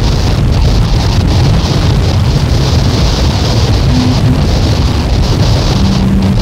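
Experimental noise music from a cassette album: a loud, unbroken wall of rumbling, wind-like noise with a hiss band high up and a few brief low held tones.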